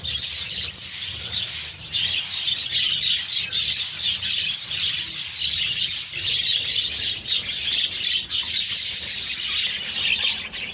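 A flock of small caged birds in an aviary chirping and chattering continuously, many calls overlapping.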